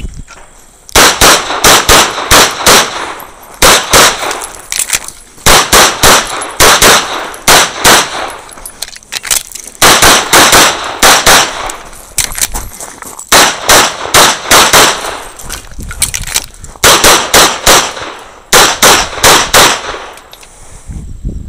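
A CZ 75 SP-01 AccuShadow pistol fired rapidly through a practical-shooting stage. The shots come in quick pairs and short strings, with brief pauses between groups as the shooter moves or reloads.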